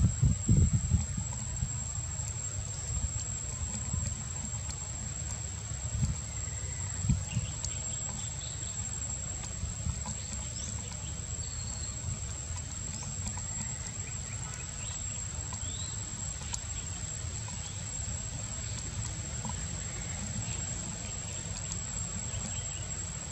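Outdoor tree-canopy ambience: a steady high-pitched insect whine, faint short chirps here and there, and a continuous low rumble, with a few dull thumps in the first second and again about six and seven seconds in.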